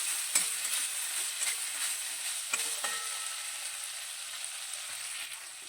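Spiced potatoes and masala paste frying in mustard oil in a pan, sizzling steadily while being stirred, with a few light clicks. The masala has been fried until the oil separates.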